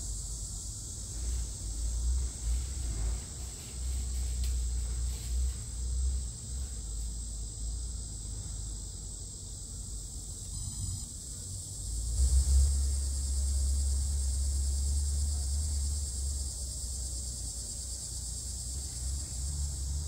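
Steady high-pitched insect chorus, with a low, uneven rumble underneath that grows louder about two-thirds of the way in.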